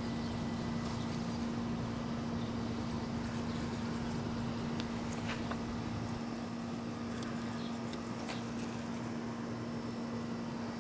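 A steady low hum runs throughout. Over it come a few faint soft clicks and scrapes around the middle as a knife slices silver skin off a raw beef tri-tip on a plastic cutting board.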